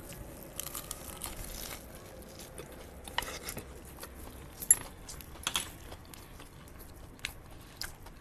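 A man biting into and chewing a toasted cheese frankie wrap: quiet, scattered short clicks of eating, irregularly spaced.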